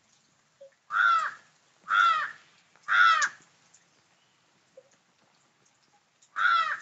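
Crow cawing: three harsh caws about a second apart, then a fourth near the end.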